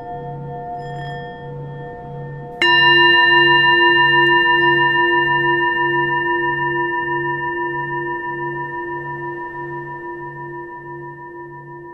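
A singing bowl is struck once about two and a half seconds in, over the fading ring of an earlier strike. Its tone then rings on and slowly fades, wavering about twice a second.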